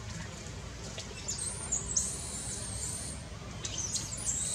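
Baby macaque giving thin, high-pitched squeaks: a run of short chirping squeals lasting about two seconds, then a few more near the end.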